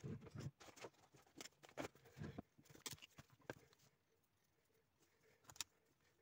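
Faint handling noise of a knife and a wine cork being picked up off a tabletop: irregular small taps and rustles over the first four seconds, then one sharp click about five and a half seconds in.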